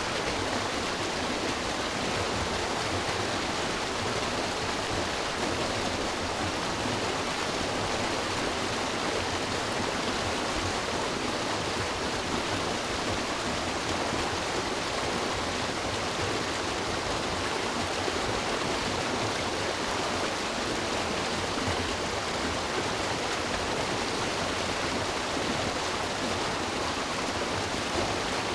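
River water rushing and splashing steadily over rocks, an even, unbroken rush.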